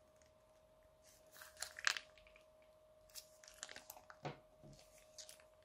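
Bead-filled clear slime squeezed out of a plastic piping bag, crackling and popping in two spells, the first about a second in and the louder, the second through the latter half.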